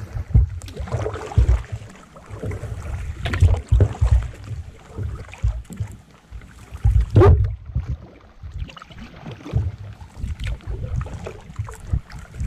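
Wind buffeting the microphone in uneven gusts while a canoe is paddled across a lake, with a few sharper paddle splashes, the loudest about seven seconds in.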